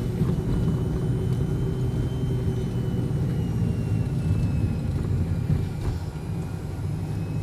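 Car being driven: a steady low rumble of engine and tyres on the road, heard from inside the car, with a faint steady whine.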